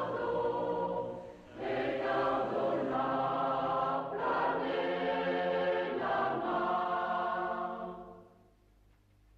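Choral music: voices holding sung chords in long phrases, with a brief break about one and a half seconds in, fading away near the end.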